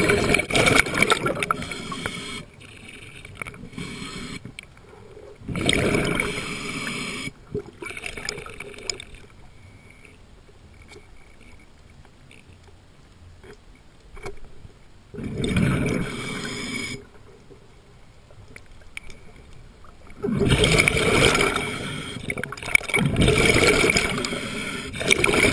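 Scuba diver's regulator underwater, with exhaled bubbles rushing out in noisy bursts of a second or two several times and quieter stretches between them; the longest burst comes near the end.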